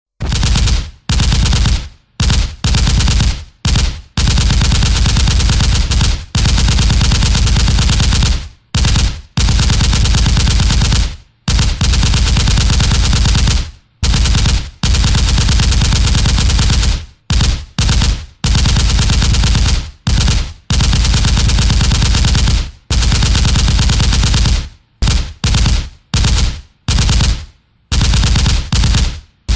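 Machine gun firing in bursts of rapid automatic fire, some short and some several seconds long, with brief pauses between them.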